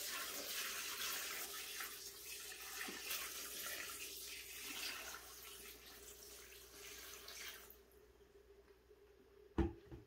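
Water poured from a gallon jug into the plastic tub of a folding portable washing machine, splashing steadily for nearly eight seconds before it trails off. A sharp knock follows near the end.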